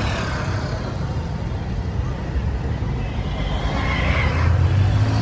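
Road traffic passing close by: car engines running and tyres on the road, a little louder in the second half.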